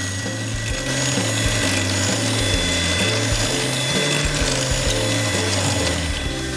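Electric hand mixer running steadily with a high motor whine, its wire beaters whisking eggs and sugar in a glass bowl until the sugar dissolves.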